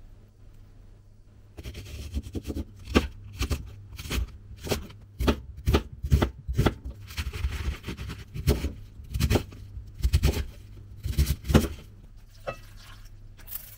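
Kitchen knife chopping negi (Japanese leek) and cabbage on a wooden cutting board. The sharp, irregular strokes start about one and a half seconds in, come at roughly two a second, and stop a little before the end.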